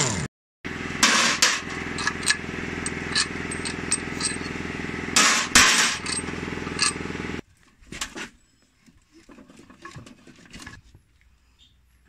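Impact wrench running on the bolts of a JCB 3CX backhoe's axle brake housing: a steady machine tone broken by short bursts of hammering, which cuts off suddenly about seven seconds in. After it, only light clinks of metal parts.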